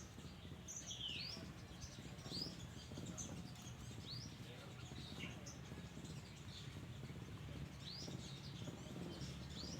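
Black-naped oriole calling: short, faint chirping notes every second or so, some sweeping up and some sweeping down, over a steady low background hum.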